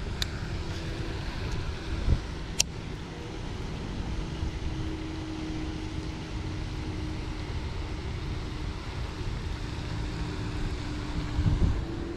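Steady low outdoor rumble of wind buffeting the microphone, with a faint steady hum through the middle and a couple of sharp clicks, the clearest about two and a half seconds in.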